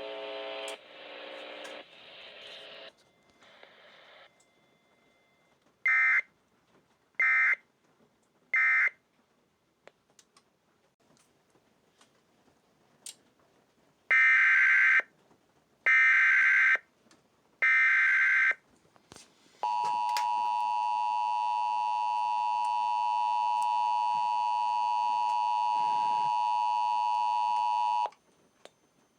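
Emergency Alert System signals. First come three short SAME data bursts, the end-of-message code. After a pause come three longer SAME header bursts announcing the next alert. Then an attention signal of steady paired tones holds for about eight seconds.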